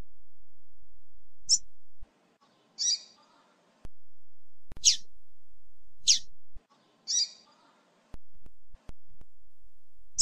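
Female double-collared seedeater (coleiro) giving short, high chirping calls, about five in a row spaced a second or two apart, with a few faint clicks in between.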